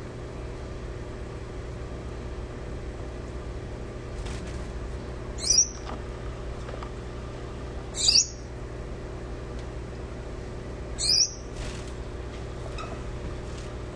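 Gouldian finch giving three short, high chirps, each sweeping downward, spaced about two and a half to three seconds apart, over a steady low hum.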